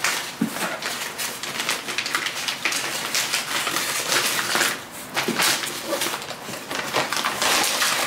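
Gift wrapping on a large box being torn and crinkled by hand: a continuous, irregular rustling and ripping.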